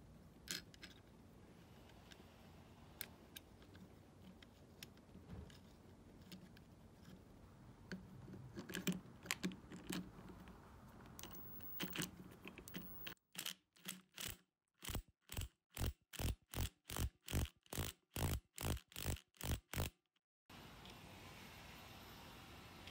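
Small metal parts clicking and being handled on the Honda CT70 clutch assembly. About halfway through comes a quick, even run of short clicks, about two or three a second: a socket ratchet being worked to run down the clutch centre nut.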